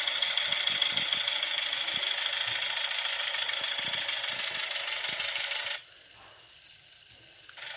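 Citroën Type H engine sound effect played back through a sound module's small speaker: a steady, thin mechanical running with no bass. It drops away for almost two seconds near the end, then starts again.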